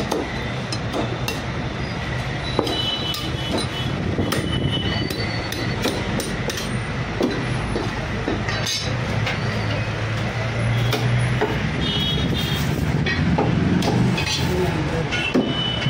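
Butcher's cleaver chopping mutton, heard as scattered sharp knocks over steady street traffic noise with a low hum.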